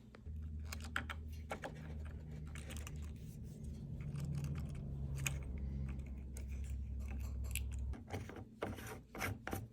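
Clicks and scrapes of plastic water softener parts being handled and fitted together. Under them, a steady low hum starts just after the opening and cuts off abruptly about eight seconds in.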